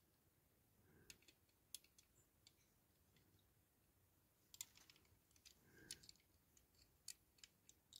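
Near silence, with a few faint, scattered clicks from a diecast toy car being handled and turned over in the fingers.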